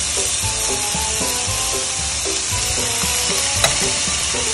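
Pre-boiled beef cubes frying with sautéed onions and garlic in an oiled pan: a steady, loud sizzle.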